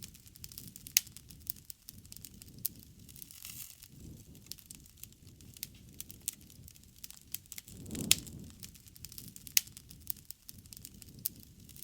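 Wood campfire burning, with irregular sharp crackles and pops and a low soft rush of flame; one louder pop about eight seconds in.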